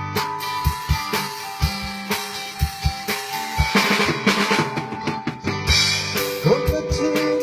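A band jamming: a drum kit keeps a steady beat with kick and snare hits under held guitar notes, with bending notes near the end.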